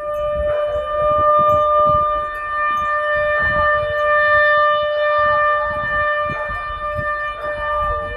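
Outdoor tornado warning siren sounding during a test, holding a single steady tone at one pitch.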